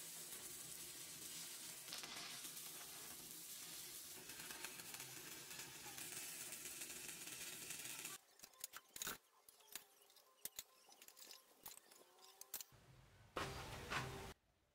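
Electric arc welding on clamped steel plates: a steady crackling sizzle for about eight seconds that stops abruptly. Then scattered light clicks and knocks, and a second short loud burst of noise near the end that cuts off suddenly.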